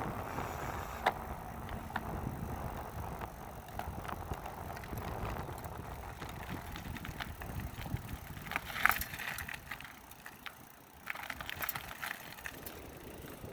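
Riding noise from a Lectric XP 2.0 e-bike in motion: a steady rumble of wind on the microphone and tyres on the road, with scattered clicks and rattles. The rumble eases about ten seconds in.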